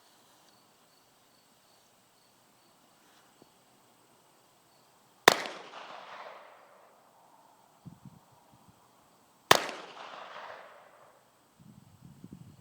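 Two shots from a Chiappa M9-22 .22 LR semi-automatic pistol, about four seconds apart, each followed by an echo that dies away over about a second.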